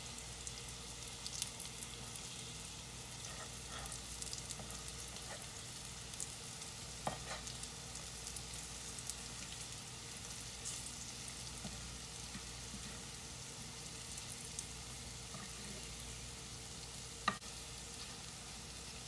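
Cornmeal-coated summer squash slices sizzling and frying steadily in a cast iron skillet, with a few short clicks of a metal slotted spoon against the pan as the slices are turned; the sharpest click comes near the end.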